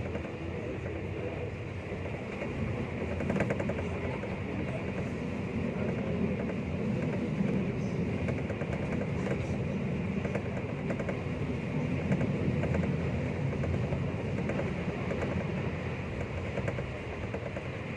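Passenger train running at speed, heard from inside the carriage: a steady rumble of the wheels on the rails, with a few faint clicks.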